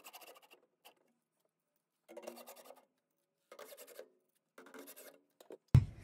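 Milwaukee cordless drill/driver with a nut-driver bit running screws into a furnace's sheet-metal burner plate, three short runs of about half a second each.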